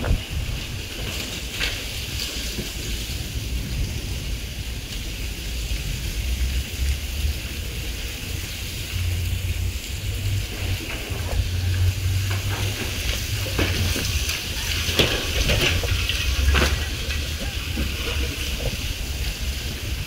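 Gusting wind buffeting the microphone with a low rumble that swells and eases, stronger in the second half. Over it comes a hiss of dry leaves, litter and grit skittering and scraping across concrete pavement, with scattered clicks and rattles.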